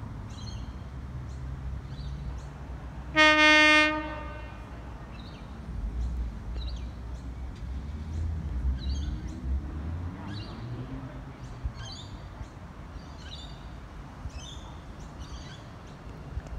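Sydney Red Set electric train sounding one short, steady horn blast about three seconds in as it approaches the station. Its low rumble swells for several seconds afterwards, with birds chirping throughout.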